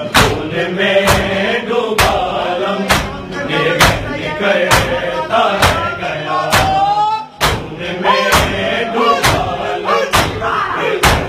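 A group of Shia mourners performing matam, beating their chests in time with sharp, regular slaps, roughly two a second, while men chant a noha over the beat. The beat and chant drop out briefly a little past the middle, then resume.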